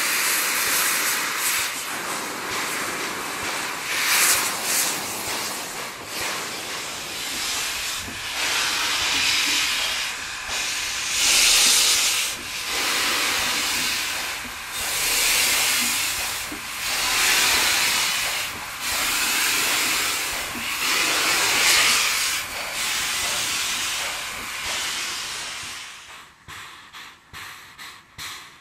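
JS-class steam locomotive hissing steam, the hiss swelling and easing every two to three seconds. Near the end it falls away to fainter pulses, about two a second.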